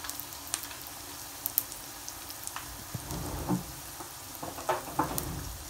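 Samosas of raw pastry shallow-frying in oil in a pan on low heat, the oil sizzling steadily with fine crackling, and a few louder pops in the second half.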